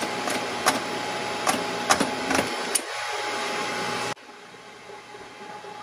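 Huth hydraulic tube expander's pump motor running steadily while a stainless steel exhaust tube end is expanded on it, with sharp metal clicks and knocks. The motor cuts off suddenly a little over four seconds in.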